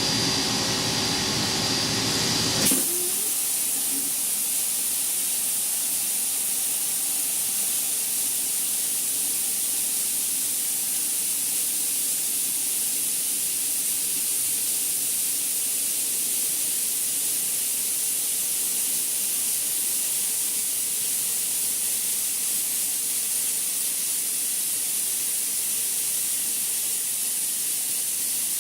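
A machine's motor whines steadily until about three seconds in, when it changes abruptly with a click to a steady high hiss like a spray or jet of air, which runs on without change.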